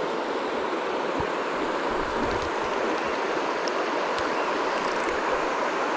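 River water rushing steadily, an even hiss without breaks.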